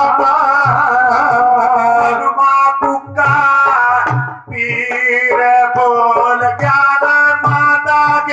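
Amplified live folk singing with instrumental accompaniment and a steady low drum beat, struck about once a second, with a brief drop in the music about halfway through.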